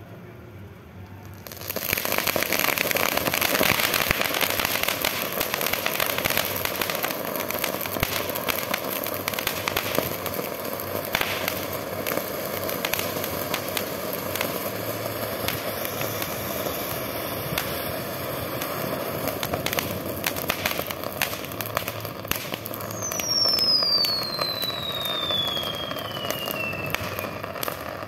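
Homemade fountain cake firework spraying sparks: a loud hiss that starts about two seconds in, dotted with crackles throughout. Near the end a whistle sounds, falling steadily in pitch for about four seconds.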